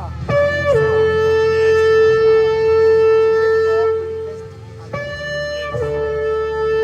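Shofar (ram's-horn trumpet) blown in two long blasts. Each opens on a short higher note that drops to a lower held note; the first is held about four seconds and fades, and the second starts about five seconds in.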